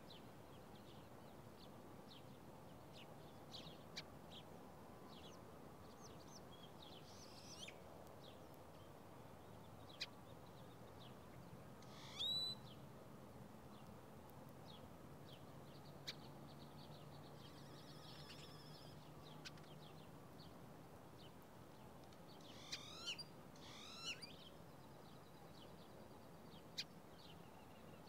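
Small songbirds calling: scattered short high chirps over a quiet background, with one louder call about twelve seconds in and a quick run of falling calls a little past twenty-two seconds.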